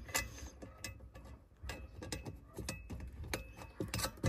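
Irregular light clicks and taps of a bolt and fitting being worked into a metal dog-guard bracket and turned by hand, with the sharpest click about four seconds in.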